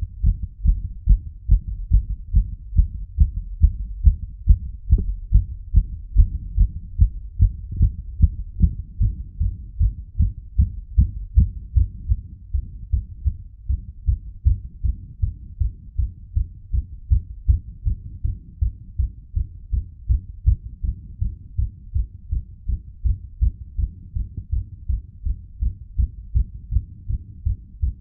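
A human heart beating fast, each beat a low thump, in a quick, even rhythm that never breaks.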